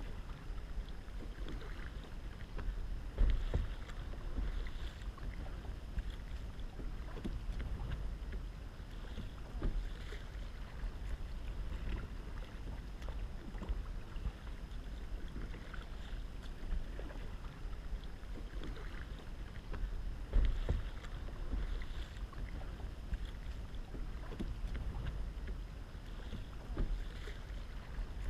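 Kayak paddle strokes dipping into calm water every second or two, with wind rumbling on the microphone. Two louder thumps stand out, about three seconds in and again about twenty seconds in.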